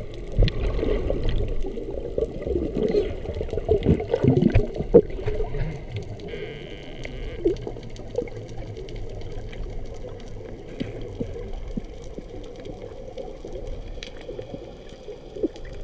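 Muffled underwater sound picked up by a submerged camera: a low, rumbling wash of water with gurgles and a few sharp knocks in the first five seconds, then settling to a quieter steady wash.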